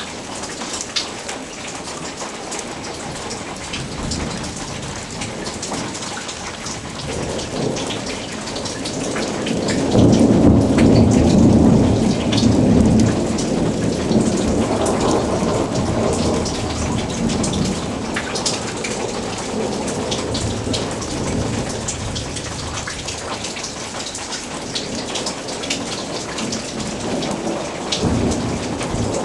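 Thunderstorm: steady heavy rain with thunder rumbling. The loudest, longest peal swells about ten seconds in and rolls on for several seconds, and another rumble begins near the end.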